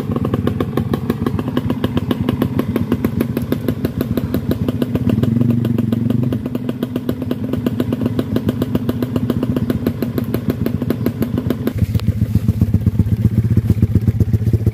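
Dirt bike engine running at fairly low, steady revs on a trail ride, briefly picking up about five seconds in and settling into a deeper, louder note near the end.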